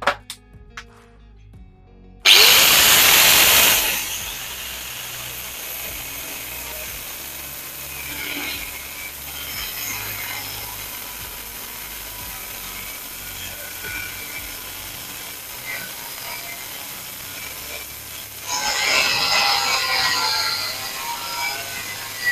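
Doliz BA 770-C 720-watt angle grinder cutting through 10 mm steel plate with an abrasive cut-off disc. After a few light clicks it comes in abruptly and very loudly about two seconds in, settles into a steady cutting sound, and grows louder again near the end.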